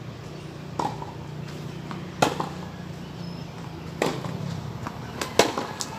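Tennis ball being hit with rackets and bouncing on a hard court during a rally: single sharp pops roughly every two seconds, then a quick cluster of three near the end, over a low steady hum.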